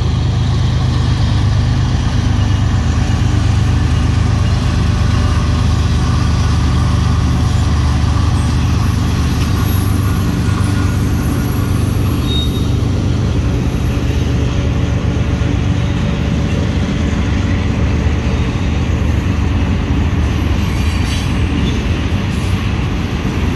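Freight train passing: the diesel locomotives' engines drone, then loaded tank cars roll steadily by on the rails.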